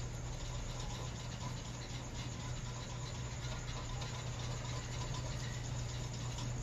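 Steady low hum over an even hiss of background noise, unchanging throughout.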